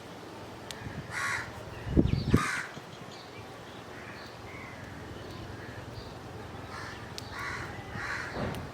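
A crow cawing: four harsh caws in two pairs, two about a second or two in and two more near the end. Two low thumps come between the first pair, louder than the calls.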